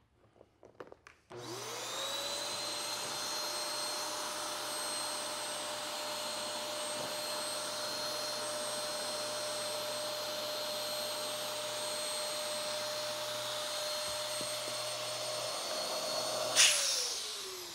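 Electric 110 V inflator pump inflating an inflatable paddle board through its hose. A few clicks and knocks come first as the hose is fitted. The pump starts about a second in, its whine rising and then holding steady, and near the end it stops with a sudden loud burst, its whine falling away as it winds down.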